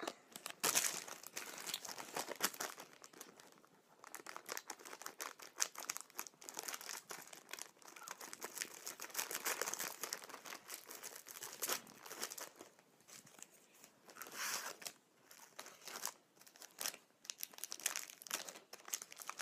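Plastic wrapper of a Solero Red Berries ice lolly crinkling and tearing in irregular bursts as it is handled and opened.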